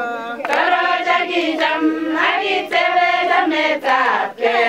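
A group of voices singing together in a choir-like way, a Kalenjin song with held, gliding notes.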